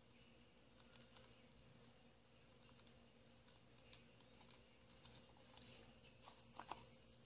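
Near silence with a few faint, scattered clicks and taps of a thin plastic bottle being worked with a soldering iron and handled, the loudest couple of clicks near the end.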